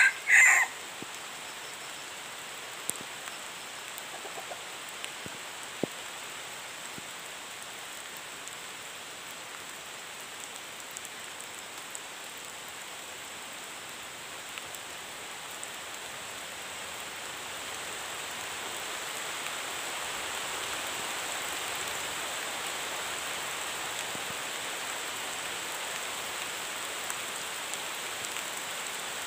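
The tail of a rooster's crow at the very start, then a steady, even hiss of forest ambience with a thin, high steady tone over it and a few faint ticks. The hiss grows a little louder about two-thirds of the way through.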